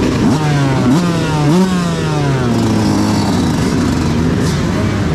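Yamaha YZ125 two-stroke single-cylinder motocross engine blipped three times in quick succession in the first two seconds, each blip a sharp rise in pitch, then left to run with its pitch slowly dropping. Other dirt-bike engines run alongside it.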